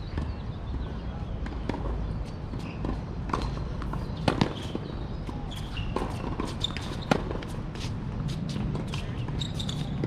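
Tennis rally: sharp pops of tennis balls struck by rackets and bouncing on the hard court, the loudest strikes about four and a half and seven seconds in, over steady outdoor background noise.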